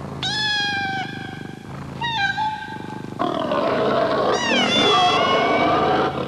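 Cartoon cat voice effects: two drawn-out meows, the second shorter and falling. From about three seconds in comes a louder, rough snarling with a wavering cry over it.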